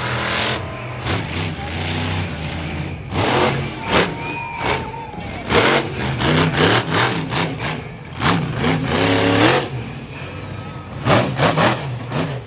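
Monster truck engine revving up and down several times over a steady low running note, with sharp cracks clustered at the loudest moments.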